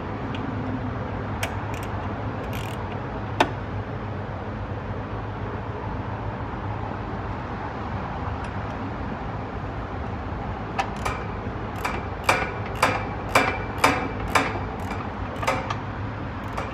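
Hand tools working on bolts under a car: sharp metallic clicks and clinks. There are three in the first few seconds and a quicker run of about two a second in the last six seconds, over a steady low hum.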